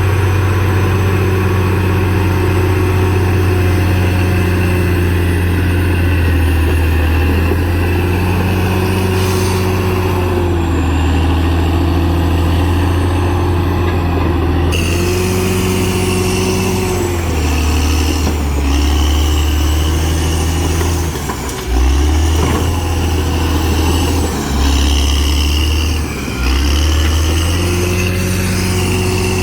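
CAT D6R XL bulldozer's diesel engine running under working load, its pitch sagging and recovering several times as the load changes, with a higher whine alongside in the second half and two brief dips in level near the end.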